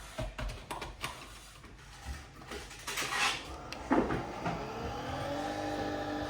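Nespresso Vertuo Next starting a brew: a few clicks, a short hiss about three seconds in, then from about four seconds the machine's motor spinning the capsule up, a hum that rises in pitch and then holds steady.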